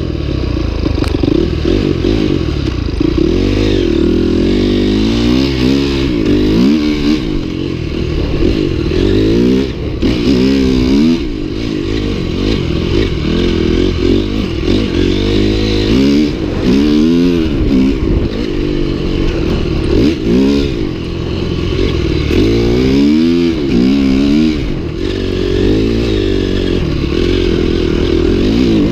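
Dirt bike engine revving up and falling back again and again as it is ridden, its pitch climbing and dropping every second or two with the throttle.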